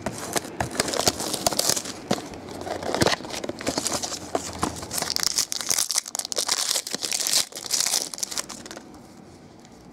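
Cardboard trading-card box being pulled open by hand, then a foil pack wrapper crinkling and tearing, with lots of small crackles and clicks. It quiets about a second before the end.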